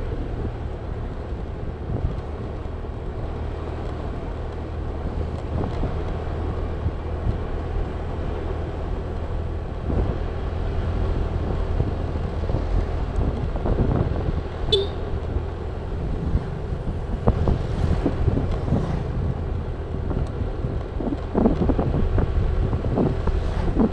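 Honda scooter's engine running steadily at an even cruising speed of about 47 km/h, with wind noise on the microphone.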